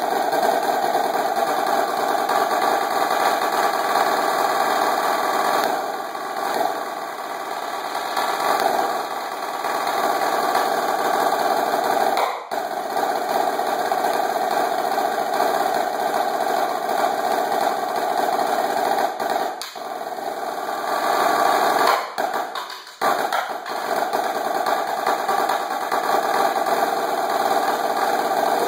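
Marching snare drum played with sticks in a dense, nearly unbroken stream of fast rolls and rudiments. The stream breaks off briefly a little over twelve seconds in, again around twenty seconds, and between twenty-two and twenty-three seconds in.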